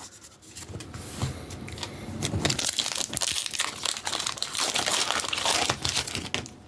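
Foil booster pack wrapper of Pokémon cards crinkling as it is torn open and handled: a dense run of small crackles starting about a second in.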